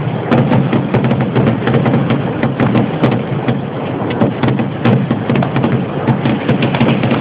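Kerala temple fireworks (vedikettu) going off in a dense, unbroken barrage: many sharp bangs and crackles a second, with no pause.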